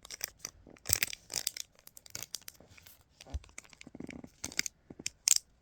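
A small mystery bag being crinkled and torn open by hand: a run of irregular crackles and rips, the loudest near the end.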